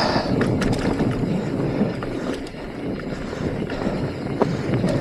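Mountain bike descending a rocky trail: a steady low rush of tyres and wind, with scattered sharp clicks and knocks as the bike rattles over rocks.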